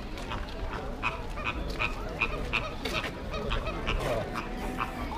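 A run of short animal calls repeated about three times a second.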